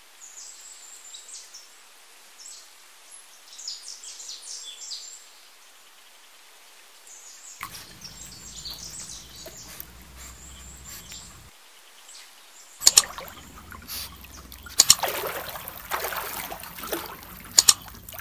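Faint bird chirping, then about two-thirds of the way through, water splashing and sloshing as a pug paddles through pool water, with several sharp splashes.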